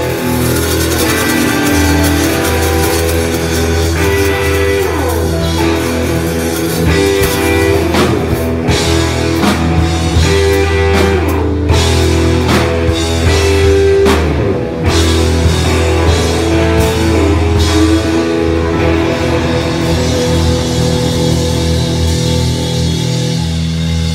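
Live blues-rock band playing loud: a Les Paul-style electric guitar plays held and bent lead notes over bass guitar and a drum kit, with no singing.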